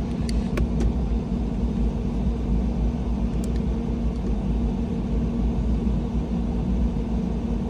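Steady low rumble of a car running, with a few faint clicks in the first second.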